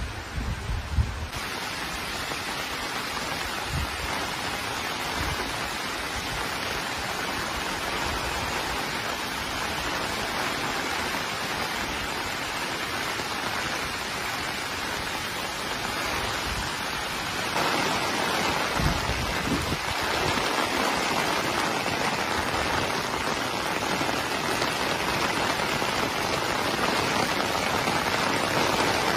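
Water pouring over a dam's overflow spillway: a steady rushing hiss that grows louder a little past halfway, with a few low bumps on the microphone.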